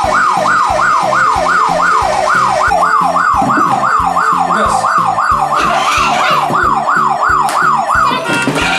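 Toy fire engine ride-on car's electronic siren, a fast up-and-down wail repeating about three times a second, stopping shortly before the end.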